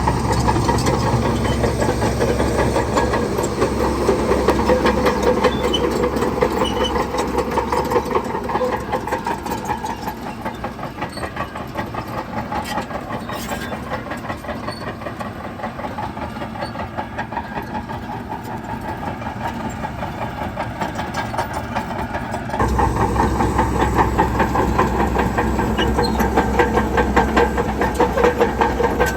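Heavy diesel earthmoving machinery running under load, a fast rhythmic engine clatter. It eases off in the middle and then comes back abruptly louder and deeper about three quarters of the way through.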